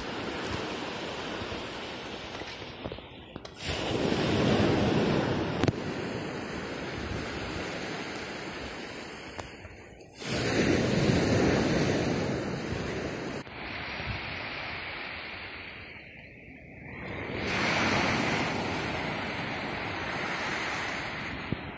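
Sea waves washing onto the shore, swelling three times into a loud rush and easing back between surges, with wind in the background.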